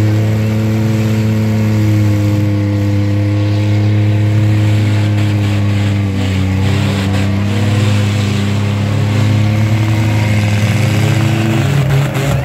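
Demolition derby pickup truck's engine held at high revs for about eleven seconds, its pitch nearly steady, then dropping off near the end.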